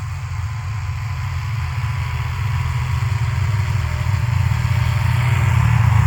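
Snowmobile engine running steadily, growing gradually louder.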